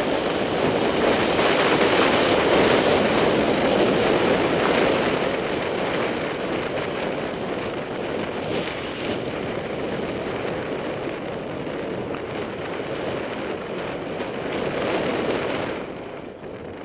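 Wind rushing over a goggle-mounted camera's microphone during a fast downhill ski run through fresh snow, a steady loud roar of noise. It drops off shortly before the end as the skier slows.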